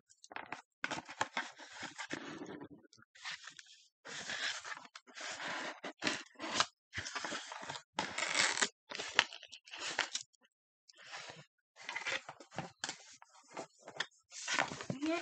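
Cardboard shipping box being pulled open by hand: its flaps scraping and tearing in many short, irregular bursts.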